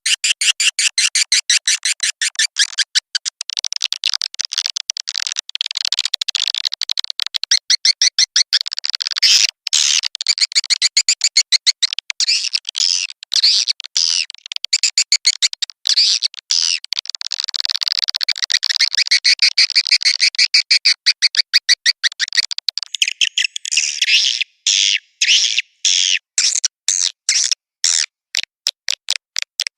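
Swiftlet lure-call recording of the mating-call ('birahi') type, played to attract swiftlets: dense, rapid, high-pitched chirping and clicking twitters in quick runs with brief breaks, with no low end at all.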